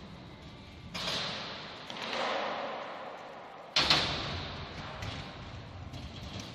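Kick scooter clattering on the wooden ramps of a skatepark, with sharp bangs about a second in and, loudest, just before four seconds. Each bang rings out in the echo of a large hall, with rolling noise between them.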